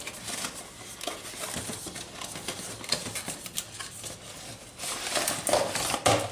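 Cardboard box being opened by hand: the flaps rustle and scrape, with small clicks, as a cardboard inner tray is slid out. The scraping gets louder near the end and finishes with a sharp click.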